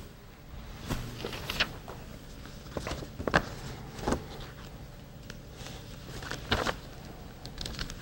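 Scattered light knocks and rustles of handling and shifting about in a meeting room, over a faint steady hum.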